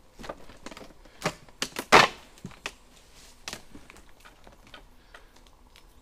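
Footsteps crunching and snapping over dry debris, broken wood and twigs: a run of irregular sharp cracks, the loudest about two seconds in, then lighter scattered ticks.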